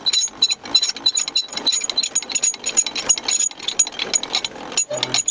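105 mm howitzer's hand-cranked laying gear being turned to set the called bearing: rapid metallic ratcheting clicks from the handwheel and gears, with a thin high-pitched ring running underneath.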